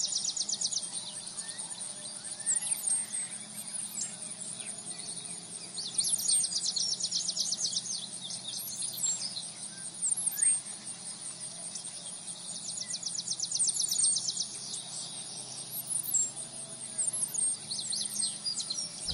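Grassland insects chirring in trains of rapid high ticks, a second or two long, that come back several times. Small birds give short high chirps throughout.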